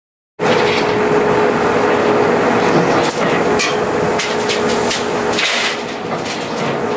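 A 2012 Kuhn Knight VT180 vertical feed mixer running on a 1000 rpm PTO drive. It starts abruptly about half a second in with a steady hum and a steady tone, over many quick, irregular metal clanks and rattles from the drive and conveyor chain.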